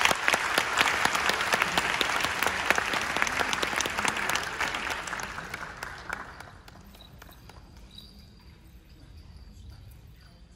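Audience applause, a dense clapping that dies away about six seconds in, leaving only faint stage sounds.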